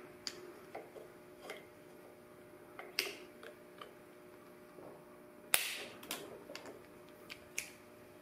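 Steel transmission parts clicking and clinking as they are handled and slid apart, a scatter of irregular light taps with the loudest knock a little past halfway, over a faint steady hum.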